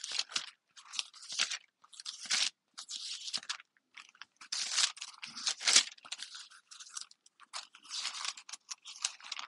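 Pages of a paper Bible being leafed through: a run of short, dry, irregular rustles and crinkles, some louder than others.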